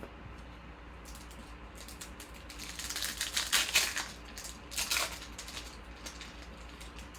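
Trading cards handled and shuffled in a stack: quick clicks and rustles, with a dense burst about three seconds in and a shorter one about five seconds in.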